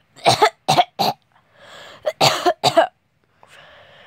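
A person coughing in two short fits, about three coughs, a breath, then four more in quick succession: play-acted coughing for a doll that has a cold.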